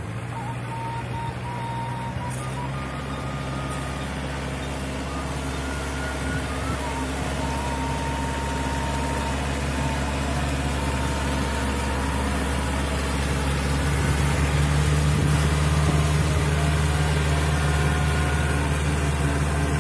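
Tractor engine running steadily under load as it ploughs a flooded rice paddy, growing louder as it comes closer and loudest in the second half.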